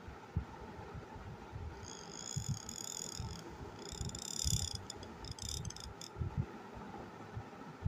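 Bamboo qalam working on paper: soft scraping strokes and irregular low bumps as the pen and hand move. Twice around the middle a high chirping tone sounds, followed by a brief fluttering stretch of it.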